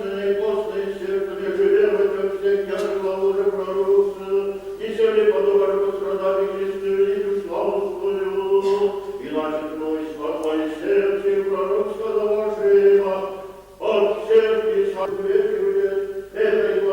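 Orthodox liturgical chant: voices sing long held notes on a near-steady reciting pitch, in phrases of a few seconds with brief breaks between them.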